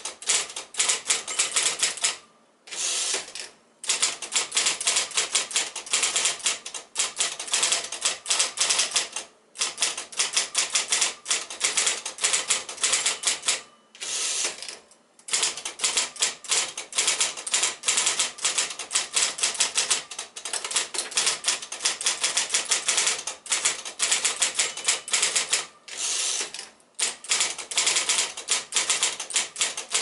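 A 1972 Royal Silver Award typewriter, built by Silver-Seiko, being typed on at speed: a fast, continuous clatter of keystrokes and typebars striking the platen, broken by a few brief pauses.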